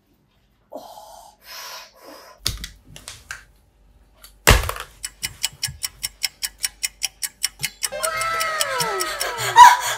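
Small plastic twist toy being wound by hand: one sharp knock, then regular clicking at about four clicks a second. Near the end several overlapping falling whistle-like tones come in over the clicking.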